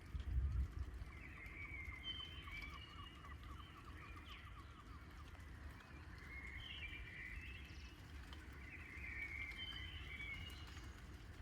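Birds singing outdoors, short chirping phrases repeated every few seconds with a brief trill near the start, over a steady low rumble. A short low thump, the loudest thing, comes about half a second in.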